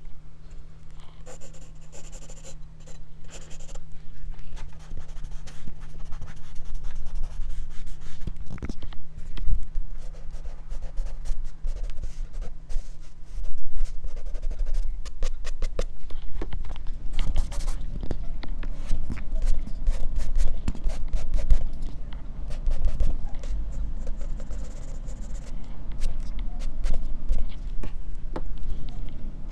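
Graphite pencil and a block eraser scratching and rubbing on drawing paper, close up on a clip-on microphone lying on the sheet. The strokes are quick and scratchy, and the rubbing gets denser and heavier from about halfway through.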